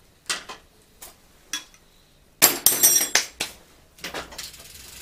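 Metal workshop tools clinking as they are handled and put down during a bicycle rear-axle repair: a few single sharp clinks, then a loud clatter of several metal knocks about halfway through. A steady rustling noise sets in near the end.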